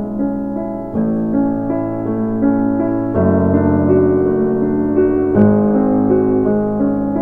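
Background piano music: soft, slow chords and single notes.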